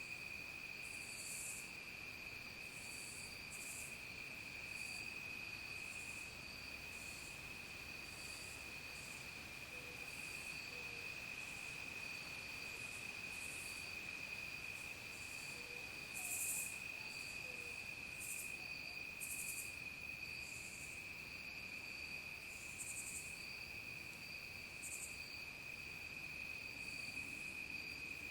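Dusk insect chorus: crickets trilling in a steady, unbroken drone, overlaid with short, irregular higher-pitched insect calls about once a second.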